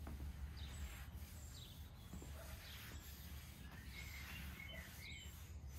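Faint outdoor ambience: a few short bird chirps, more of them in the second half, over a low steady rumble.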